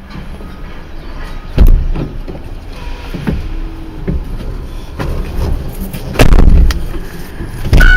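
Low rumble of a vehicle with heavy thumps and knocks over it: one about a second and a half in, a longer run of them around six seconds in, and another near the end.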